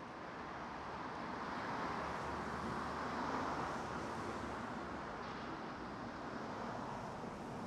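Steady wash of city street ambience with traffic, no single vehicle standing out, swelling a little over the first few seconds and then holding.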